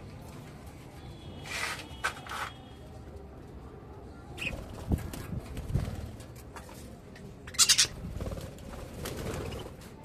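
A flock of budgerigars in an aviary chirping now and then, with short flurries of wing flapping; the loudest is a quick flurry about three-quarters of the way through.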